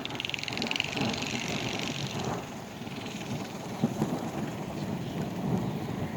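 Small gasoline engine running with a steady, rough sound, with a faster rattling pulse in the first second or so.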